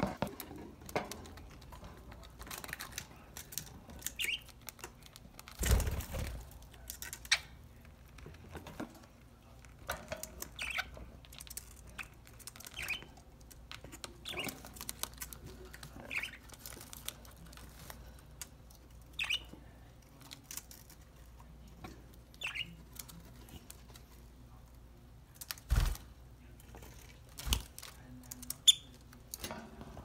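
Pet budgerigars in a cage giving short, scattered chirps every few seconds, with a few louder bursts of wing flapping, about six seconds in and again near the end.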